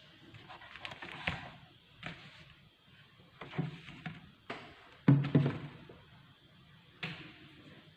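A handful of separate knocks and thumps in a small room, irregularly spaced, the loudest about five seconds in.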